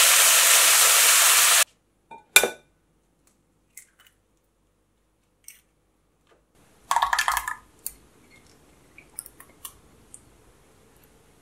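Minced beef and onions sizzling in a steel frying pan as they are stirred with a wooden spatula, cutting off suddenly after about a second and a half. Then eggs are cracked into a glass measuring jug: a sharp crack about two and a half seconds in, a few light taps, and a short noisy burst around seven seconds in.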